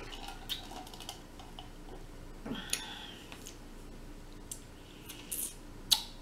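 Mouth sounds of someone drinking from a metal tumbler and eating: swallowing, then scattered sharp mouth and lip clicks, the loudest near the end.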